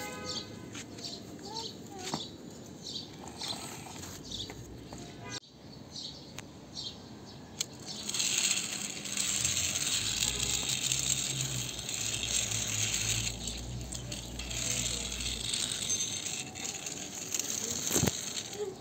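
Small toy car pushed by hand along a concrete ledge, its wheels rolling and scraping with a steady gritty hiss and low rumble. Before that, scattered light ticks and rattles, and a sharp click near the end.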